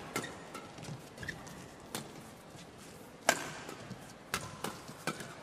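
Badminton rackets striking the shuttlecock in a fast doubles rally: a string of sharp cracks about a second apart, the loudest about three seconds in.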